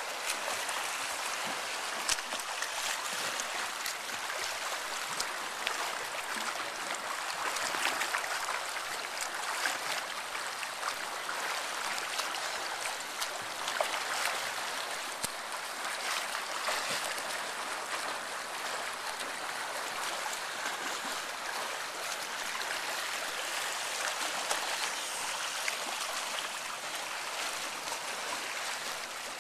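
Splashing water from a swimmer doing backstroke, her arm strokes and kicks making a steady wash with small irregular splashes.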